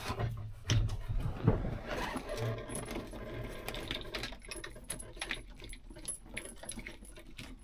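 Scattered light clicks and rustling of wires and small parts being handled during wiring work in a truck cab.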